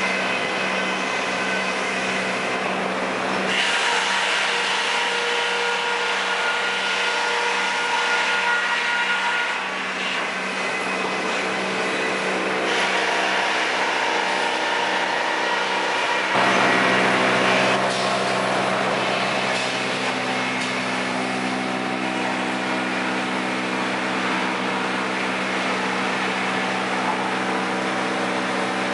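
Sawmill machinery running with a steady motor hum, and louder noisy stretches of sawing, one starting about three and a half seconds in and another about thirteen seconds in.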